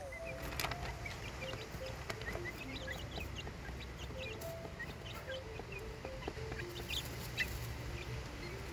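Young chickens peeping and chirping in short, high notes scattered throughout, with a few louder chirps about seven seconds in.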